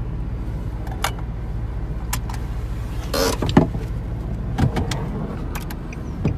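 Jeep driving, heard from inside the cabin: a steady low engine and road rumble with scattered light clicks and knocks, and a brief rushing noise about three seconds in.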